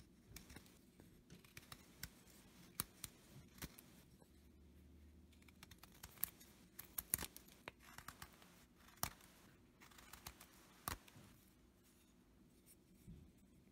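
Small carving knife made from a file slicing shavings off a wooden block by hand: a quiet, irregular series of crisp snicks and scrapes, one per cut.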